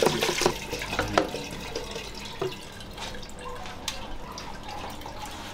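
Palm nut soup poured from a bowl into a metal pot, splashing and dripping, with a couple of sharp knocks in the first second or so.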